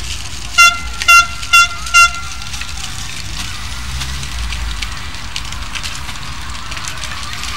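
A high-pitched horn toots four short times in quick succession, about a second in, over steady street background noise.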